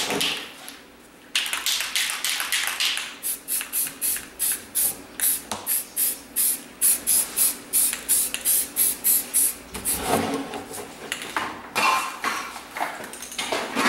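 Aerosol spray paint can sprayed in quick short bursts, a hiss repeated about three times a second.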